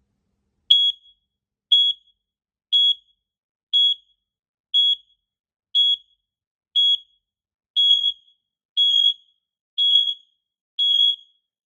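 Six interlinked AEGISLINK SC200 smoke and carbon monoxide alarms sounding together on a test press of one unit: quite loud, evenly spaced high-pitched beeps about once a second, starting just under a second in. In the second half the beeps grow longer and blurred.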